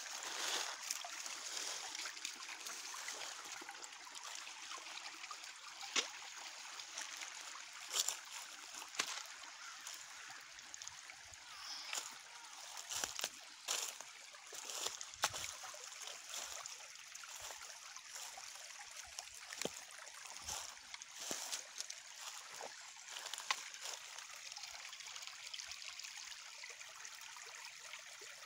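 Small shallow spring-run creek trickling steadily over its bed, with scattered sharp crunches and crackles of dry leaf litter being stepped on.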